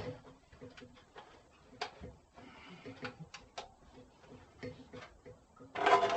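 Scattered light clicks and knocks of handling and setting up metal, with no saw motor running; a brief louder clattering rush comes near the end.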